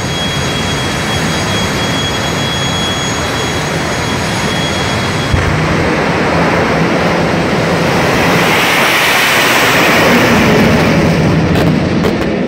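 Rocket engine of a rocket-powered drag-racing bus firing with a loud, steady rushing noise. It swells and grows sharper about eight seconds in as the bus launches, then breaks off into crackles near the end.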